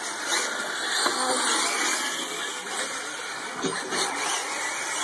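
Several electric 4WD radio-controlled short course trucks running on a dirt track, their motors whining up and down over a steady hiss.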